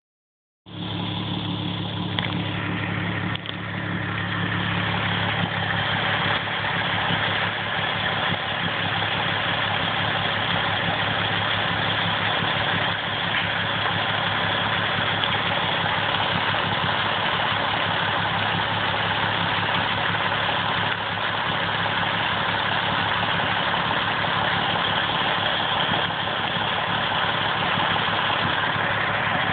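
Volkswagen 24-valve VR6 engine idling steadily, with a strong, even hiss over the engine note: the sound of a massive vacuum leak.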